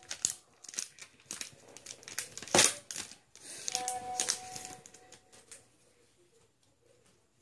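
Foil wrapper of a Pokémon Steam Siege booster pack crinkling and tearing as it is opened by hand: a run of crackles with one sharp, loud crackle about two and a half seconds in, dying away about five and a half seconds in.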